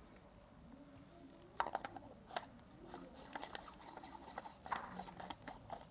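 Faint clicks and scraping of metal Tair-11 lens parts being handled and screwed together by gloved hands, with several sharp clicks starting about a second and a half in.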